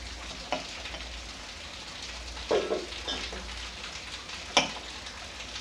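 A hand kneading and mixing a crumbly sattu (roasted gram flour) filling in a steel bowl: a steady gritty rustle, with a few louder knocks against the bowl, the sharpest about four and a half seconds in.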